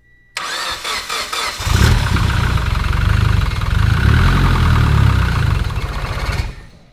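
Freshly built Mitsubishi Lancer Evolution X's turbocharged 2.0-litre four-cylinder (4B11T), on its first start: the starter cranks it for about a second, then the engine catches and runs for several seconds before dying away near the end. It runs in a way the owner calls not healthy and weird, and a check engine light comes on.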